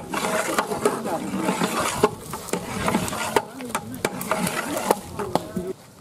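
A long metal stirring rod knocking and scraping against the side of a large aluminium cooking pot as a batch of mung bean daal is stirred, with repeated sharp knocks.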